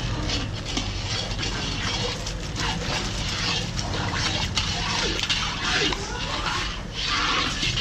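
Liquid splashing and bubbling, with short gurgling glides scattered through it.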